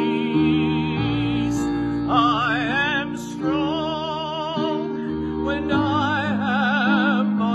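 A man singing a slow solo, holding long notes with a wide vibrato over steady instrumental accompaniment.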